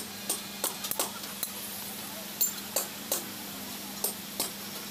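Irregular sharp metallic clinks and taps, about nine of them, as rivets are handled and set into the friction lining of a truck clutch plate.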